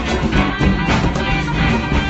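Live rock band playing an upbeat song: electric guitar over a steady drum beat, with no vocals.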